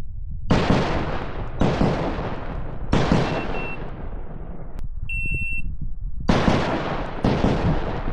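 Three pistol shots about a second apart, each ringing out in the open air, then a shot timer's high start beep about five seconds in, followed by two more shots near the end. These are timed draw-and-fire strings from a 9 mm Glock.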